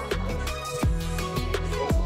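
Electronic background music with sustained bass notes and a deep kick drum hitting about once a second.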